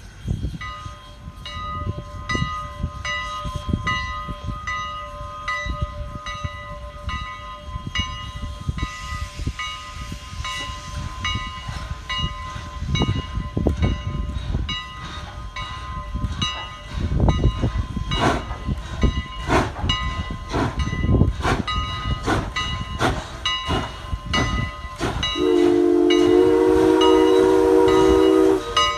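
Ex-CN 89, a 2-6-0 steam locomotive, working past with exhaust chuffs that grow louder, while a bell rings about twice a second. Near the end its whistle sounds one long, chord-like blast, the loudest sound here.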